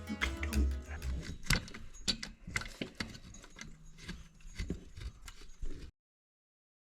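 Hand tools and small metal parts clinking and rattling in quick, irregular clicks, then the sound cuts off abruptly about six seconds in.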